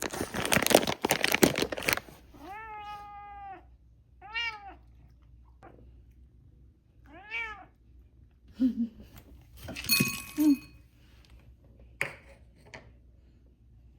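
A domestic cat meows three times: one long, level meow, then two short rising-and-falling ones. Before the meows there is a loud rustling clatter lasting about two seconds, and soft knocks and a clink follow near the end.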